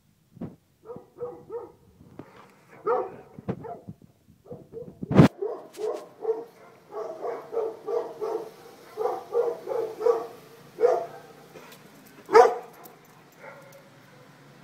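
A dog barking repeatedly in quick, irregular runs of short barks, a few of them much louder than the rest.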